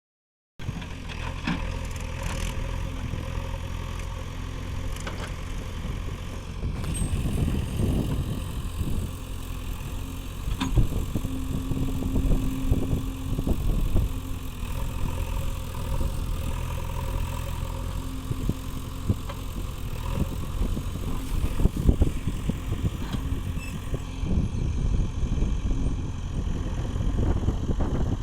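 Diesel engine of a JCB 3DX backhoe loader running steadily while the machine digs mud, with irregular knocks and clanks. A brief steady whine sounds about eleven seconds in and lasts a couple of seconds.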